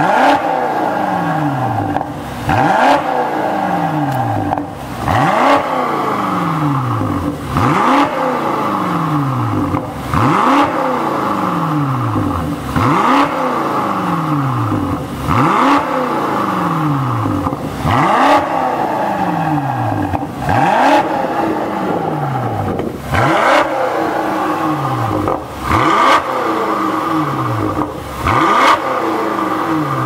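BMW X5 M Competition's twin-turbo V8 revved repeatedly through a Fi Exhaust valvetronic exhaust with its valves open. A quick throttle blip comes roughly every two and a half seconds, each one falling back toward idle.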